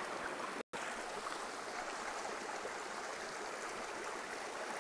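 Shallow rocky stream: steady flowing water over stones and boulders. It cuts out for a split second about two-thirds of a second in.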